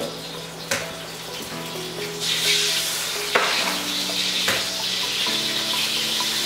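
Eggs frying in hot oil in a wok on a gas burner: a sizzle that swells about two seconds in as the eggs hit the pan, with a few sharp clicks of eggshells being cracked.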